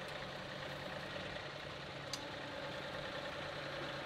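Compact loader tractor's engine idling steadily, with one light click about two seconds in.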